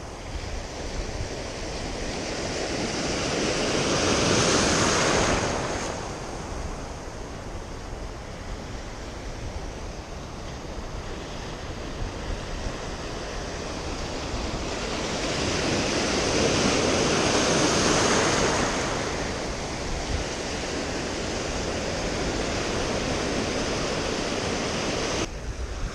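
Ocean surf washing in and breaking right around the camera. Two larger waves surge in, each building over a few seconds and then fading, the first about four seconds in and the second around seventeen seconds in.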